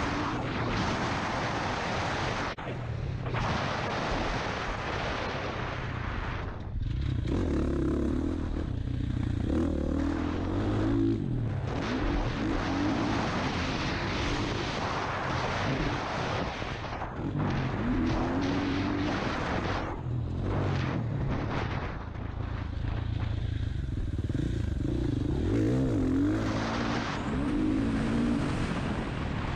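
Dirt bike engine ridden hard, revving up and backing off every few seconds as the throttle opens and shuts.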